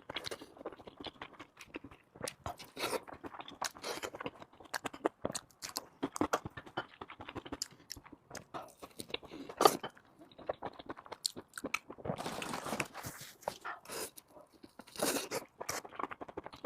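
A person eating close to the microphone: irregular chewing and crunching bites of pig's head meat, with a sharper, louder crunch about ten seconds in.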